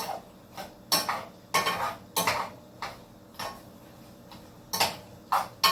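A metal utensil knocking and scraping against a cooking pot in about a dozen irregular strokes, with a lull in the middle.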